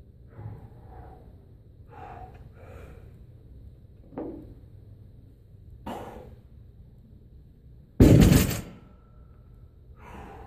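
A barbell loaded with black bumper plates, 367 lb, comes down from a deadlift lockout onto a wooden lifting platform about eight seconds in, with one loud crash that dies away in under a second. Before it come a few short, breathy exhales from the lifter during the last rep.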